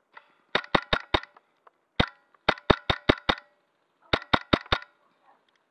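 A Wolverine MTW HPA airsoft rifle firing close by in quick bursts of sharp shots at about five a second. There are four shots near the start, a single shot about two seconds in, then a burst of five and a final burst of five.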